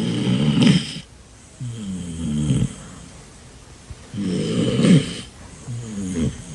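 A dog snoring: two slow breaths, each a rasping snore in and a snore out, four snores in all.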